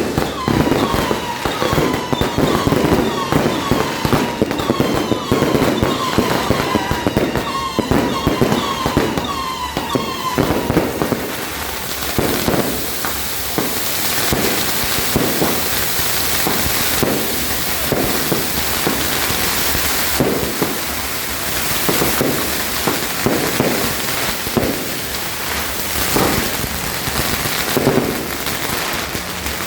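Fireworks going off in quick succession: bangs mixed with short whistles, repeating about every half second, for the first ten seconds or so. After that comes a dense, continuous crackling.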